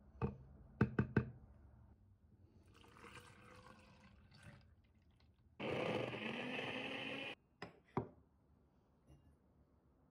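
NutriBullet personal blender running for about two seconds, blending frozen banana and milk, with a steady low hum under the noise, then cutting off suddenly. Before it come several sharp knocks and some quieter handling noise, and there are two clicks just after it stops.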